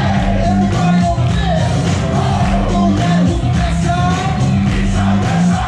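Loud pop dance track playing, with singing over a steady, heavy bass beat.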